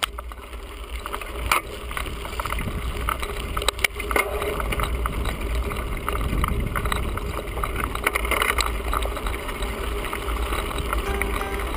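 Bicycle riding over a dirt trail: a steady rattle and crunch of tyres and frame, with sharp knocks from bumps about a second and a half in and again near four seconds, over a low rumble of wind on the microphone.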